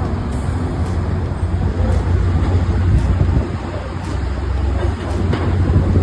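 Steady low mechanical rumble, an engine-like hum with a hiss over it, running without a break.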